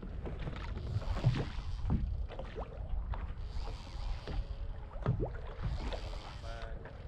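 Wind buffeting the microphone over water slapping against the hull of a small boat, with scattered knocks.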